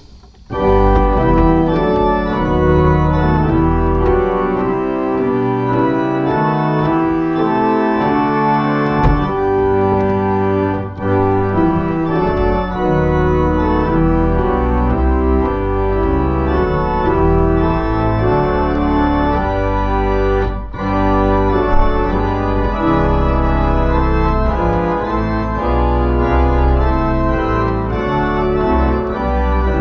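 1871 Walker pipe organ playing a hymn in full sustained chords. Short breaks between phrases about 11 and 21 seconds in.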